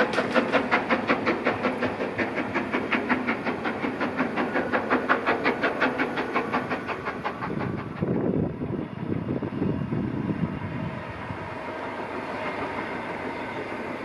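Exhaust beats of the four-cylinder LMS Princess Coronation pacific No. 46233 Duchess of Sutherland, working hard as it accelerates up the incline: a rapid, even chuffing of about five beats a second that fades as the train draws away, dying out about eight seconds in and leaving a low rumble.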